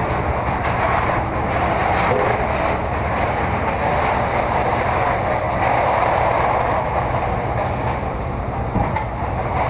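Steady loud mechanical rumbling with a continual clatter.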